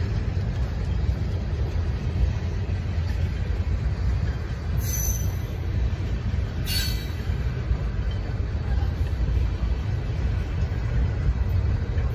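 Freight cars of a Great Lakes Central Railroad train rolling past, giving a steady low rumble of wheels on rail. Two brief high-pitched squeals come about five and seven seconds in.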